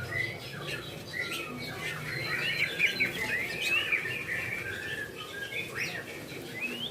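White-rumped shama (murai batu) singing a continuous run of varied whistled phrases, the notes quickly sliding up and down, with a few sharp rising sweeps near the end.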